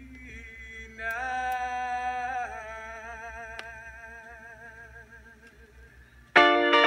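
Soul-funk rock recording in a sparse passage: a long held sung note with a wavering vibrato fades away. Near the end, loud distorted electric guitar chords crash back in.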